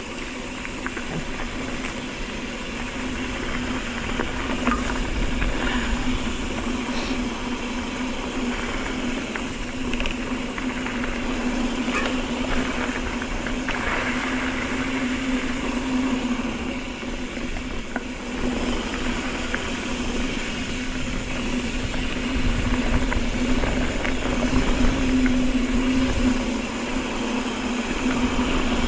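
Mountain bike rolling fast on a rocky dirt fire road: a steady hum from the tyres with rumbling wind noise that swells now and then, and scattered small clicks and rattles from the bike over gravel.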